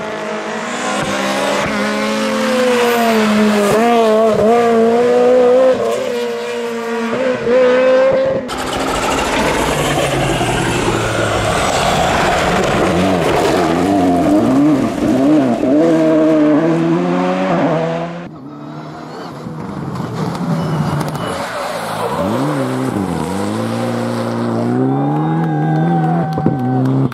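Rally cars at competition speed in three short cuts, engines revving hard through bends, the pitch repeatedly climbing and dropping with gear changes and throttle lifts. The middle cut adds tyre and loose-gravel noise. In the last cut an engine grows louder, its pitch dipping sharply and climbing again.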